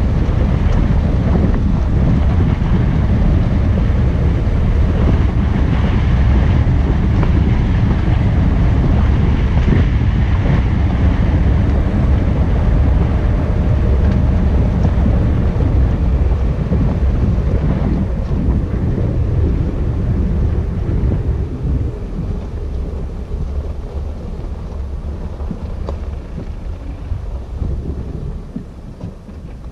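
Wind buffeting the microphone over the low road and engine rumble of a moving Renault Oroch 2.0 pickup. It eases somewhat about two-thirds of the way through.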